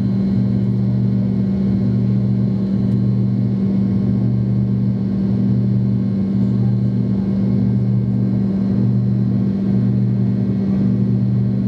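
Cabin drone of an MD-82 climbing out after takeoff, heard from a rear window seat near its two tail-mounted Pratt & Whitney JT8D-200 turbofans. It is a loud, steady low hum, with a deeper tone that swells and fades every second or so.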